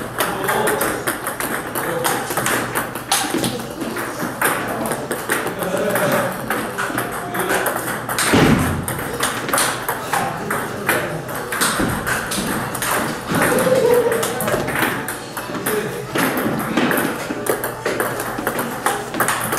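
Table tennis ball clicking off rubber-faced paddles and bouncing on the table in a fast run of hollow pings and taps, with one heavier knock about halfway through.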